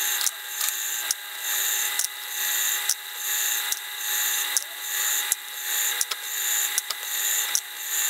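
Lyman case prep center's motor running, its chamfer tool cutting the crimp out of the primer pocket of a Lake City 5.56 military brass case held down on it: a steady whir with a scraping cut that swells and eases about once a second.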